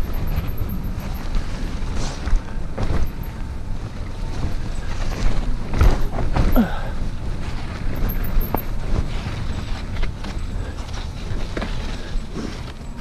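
Mountain bike riding fast down a rough dirt trail: a steady low rumble of tyres and wind buffeting the handlebar-mounted microphone, with repeated knocks and rattles of the bike over roots and bumps, the loudest about six seconds in, and a few brief squeaks.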